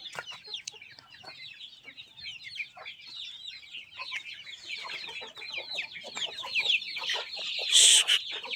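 A flock of desi chickens in their coop: many chicks peeping constantly in short, high, falling chirps, with hens clucking underneath. Near the end comes a brief loud harsh burst.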